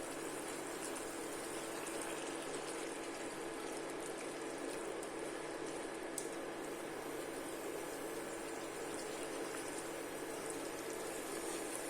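Pot of cabbage and potatoes simmering in boiling water, a steady bubbling hiss with no change through the stretch.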